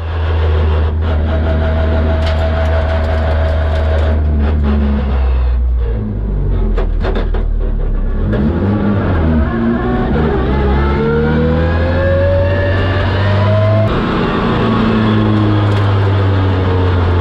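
Nissan Silvia S15 drift car's engine heard from inside the cabin, running steadily at low revs. About halfway through it climbs in pitch for several seconds as the car accelerates, then drops back and holds steady again.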